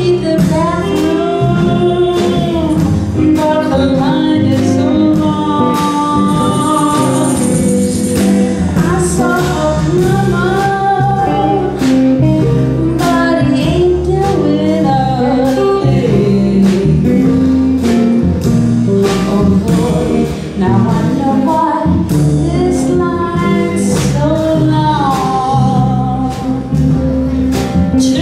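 A group of singers, women's voices to the fore, singing a song with musical accompaniment that keeps a steady beat.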